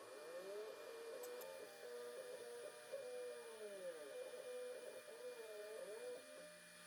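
Shop-built KRMx02 CNC router cutting a contour pass in plywood with a 1.5 mm end mill. A faint whine glides up and down in pitch as the stepper-driven axes speed up and slow down around the curves.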